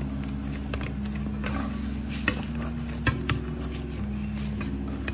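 Hands kneading bread dough in a stainless steel bowl, with a few sharp knocks of hand and dough against the metal about two and three seconds in. Soft background music with steady low notes plays underneath.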